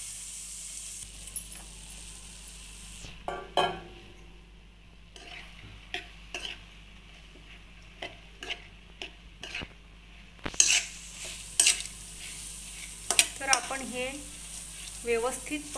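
Metal spoon stirring and scraping washed split moong dal around a hot, dry kadhai, with a faint sizzle as the damp grains start to dry-roast. Irregular scrapes and knocks of the spoon on the pan, coming thicker and louder in the last few seconds.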